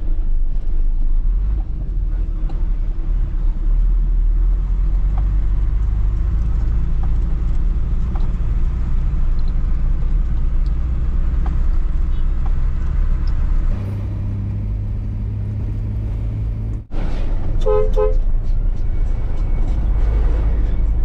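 Hino truck's diesel engine running steadily under way, heard from inside the cab, with its note changing about fourteen seconds in. Near the end a horn gives two short toots.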